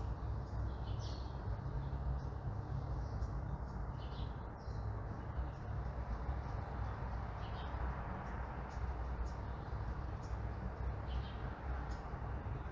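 Small birds chirping, short high chirps every second or so, over a steady low rumble of distant traffic.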